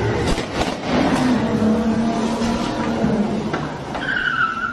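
Car engine revving, with a few sharp knocks in the first second or so.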